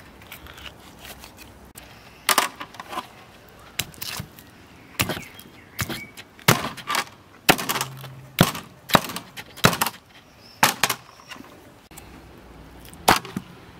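Cartilage and bone of a large fish's head cracking and crunching as its gills are cut and pulled out with a knife: about fifteen sharp snaps in irregular bunches, thickest in the middle, with one last crack near the end.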